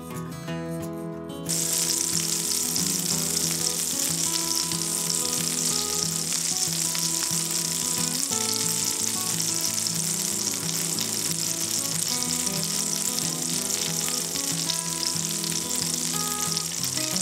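A pat of butter sizzling as it melts in a hot frying pan, starting suddenly about a second and a half in, then a steady frying hiss as the butter foams.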